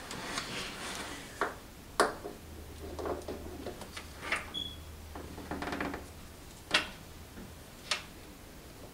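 A handful of sharp metallic clicks and clinks, with soft handling rustle, as a double-row timing chain is worked over the sprockets of a BMW M51 diesel engine. A faint low hum runs under the middle of it.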